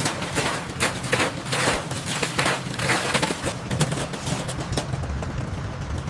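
Construction-site clatter: a dense, irregular run of knocks, cracks and scrapes from work on building materials over a low rumble.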